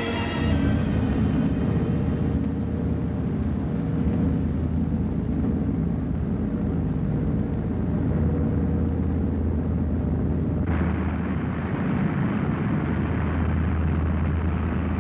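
Flying boat's piston engines droning steadily in flight. A brighter hiss joins the drone about two-thirds of the way through.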